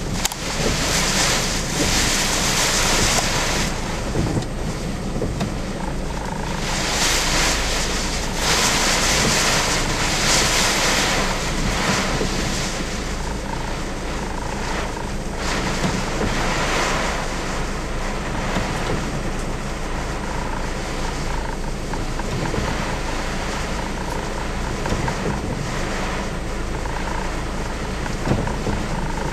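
Strong typhoon wind buffeting the microphone over the noise of ocean surf, with a constant low rumble. The gusts swell and ease several times.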